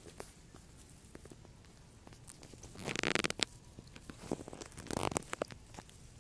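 Close rustling, tearing and crackling of grass as a baby monkey roots about in it, with scattered sharp clicks and two louder rasping bursts, about three and five seconds in.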